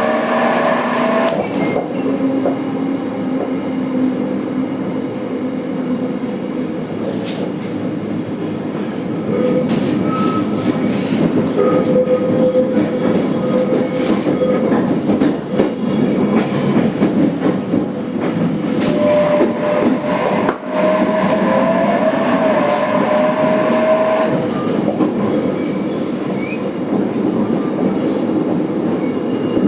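Running noise inside a JR Kyushu 817 series 3000 motor car: a steady rumble of wheels on rail. The traction motors whine, with the pitch climbing at the start and again near the end of the second third. A thin, high wheel squeal comes in for a few seconds about halfway through.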